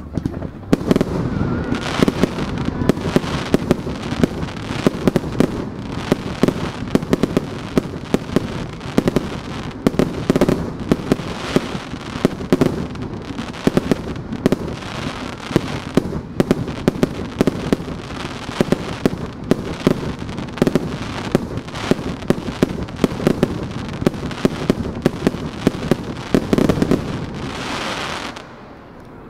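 Fireworks display in a rapid-fire barrage: aerial shells launching and bursting in quick succession, many sharp bangs overlapping into a continuous crackling din. It stops abruptly about a second before the end.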